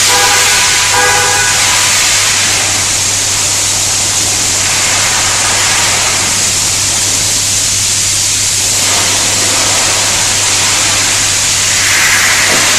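Steady loud hiss over a constant low hum, with a brief horn-like tone sounding twice in the first second and a half.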